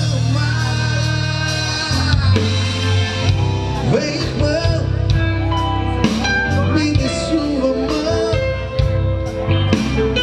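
A live Brazilian gospel band plays through a PA: a male lead singer sings over a drum kit, keyboards and a steady bass line.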